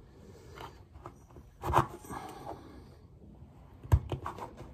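Close handling noises: a plastic card scraping and tapping as it presses the rim of a rubber diaphragm into the groove of a carburettor piston, with small clicks throughout and two sharper knocks, about two seconds in and near the end.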